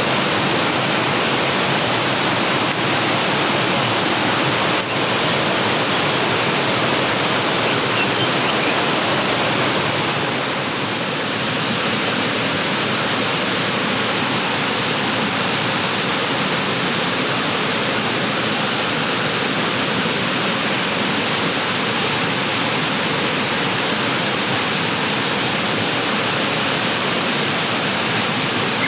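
Steady, loud rushing hiss with no pauses, dipping slightly about eleven seconds in.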